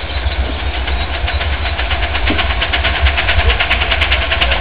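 A 12-inch gauge steam locomotive runs light towards the listener, its fast, even beats growing louder as it approaches, over a constant low rumble.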